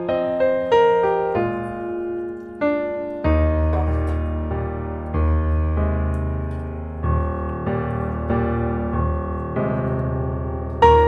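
Background piano music: a slow run of struck notes and chords, with a deep bass note coming in about three seconds in.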